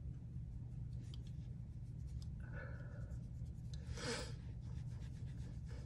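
Faint scratchy strokes of a makeup brush's bristles rubbing over skin as cream makeup is buffed in, over a steady low hum in the room. A short, louder rustle comes about four seconds in.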